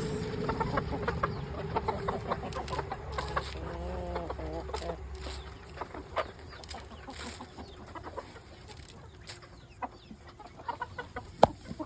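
Chickens clucking, with a short pitched call about four seconds in and scattered light clicks and taps throughout.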